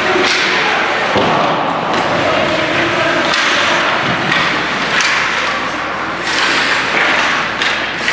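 Ice hockey play: skates scraping the ice, with several thuds and slams of puck, sticks and bodies against the boards.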